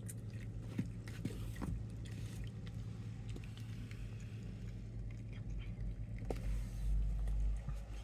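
Cats eating from their bowls: small chewing clicks over a steady low hum. A louder low rumble comes near the end.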